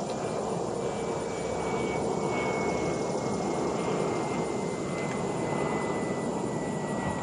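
Aircraft engine droning steadily, with a faint high whine that slowly falls in pitch.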